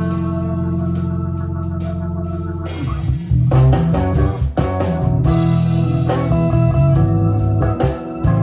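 A rock song with guitar and organ over a heavy bass line, with sustained chords and a change in the arrangement about three seconds in.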